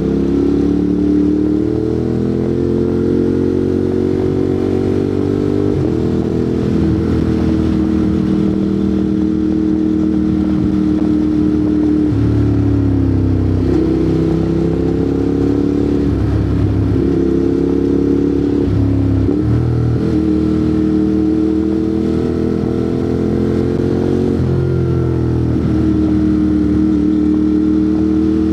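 Ducati Monster 821's 821 cc L-twin engine running through an aftermarket Termignoni exhaust while riding. Its pitch climbs and then steps abruptly several times as the gears change.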